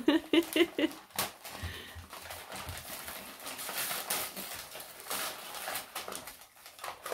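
Wrapping paper crinkling and tearing as a small present is unwrapped by hand, a run of irregular crackles, after a brief voice sound at the start.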